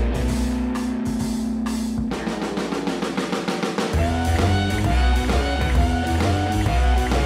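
Background music with drums and guitar; a heavy bass part comes in about four seconds in.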